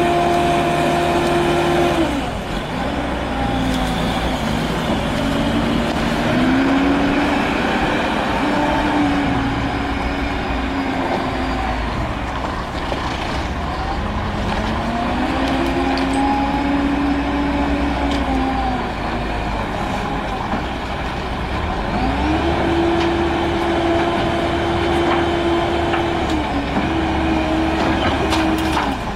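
Multirotor drone's motors and propellers humming, the pitch holding steady, then dropping and swelling up and down in slow glides, steady again near the end before it cuts off.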